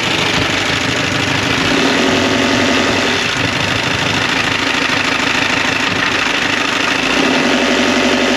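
Sailboat's inboard engine running steadily in gear during a test after its Vetus shaft coupling was replaced, with a rhythmic mechanical pulse that swells slightly twice.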